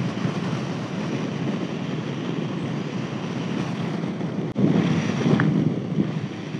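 Wind rushing over the microphone of a Honda VFR800 motorcycle under way, with engine and road noise underneath. There is a single click and brief drop about four and a half seconds in, where the sound jumps.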